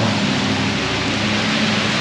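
Heavy rain falling steadily, with the low hum of a passing vehicle's engine that fades near the end.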